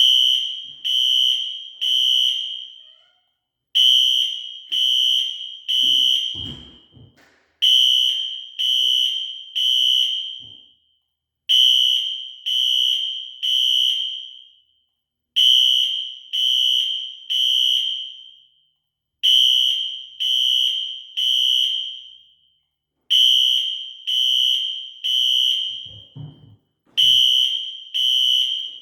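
Wheelock Exceder HSR fire alarm horn sounding the temporal-3 evacuation pattern: three short high-pitched blasts, a pause, then three more, repeating about every four seconds. This is the building-evacuation signal from an alarm set off at a pull station during a system test.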